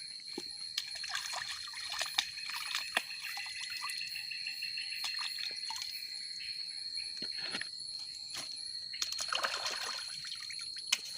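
Water trickling and pouring, with light scattered clicks and a louder rush of water about nine seconds in, over a steady high-pitched tone.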